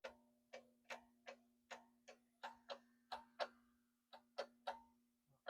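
A series of about a dozen sharp clicks, unevenly spaced at two or three a second, over a faint steady hum.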